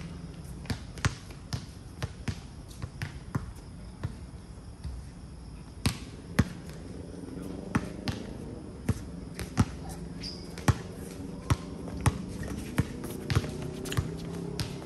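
A basketball dribbled on a hard outdoor court: a long run of sharp bounces, about two a second, some much louder than others.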